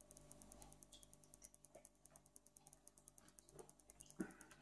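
Near silence: room tone with a few faint soft clicks and one slightly clearer tap near the end.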